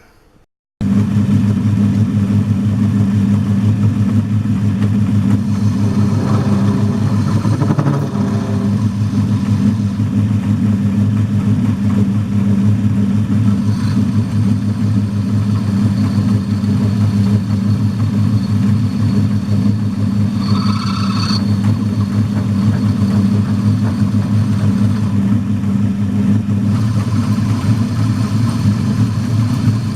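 A roughly 100-year-old metal-turning lathe switched on about a second in and running steadily with a low, even hum. A short higher squeal sounds about two-thirds of the way through.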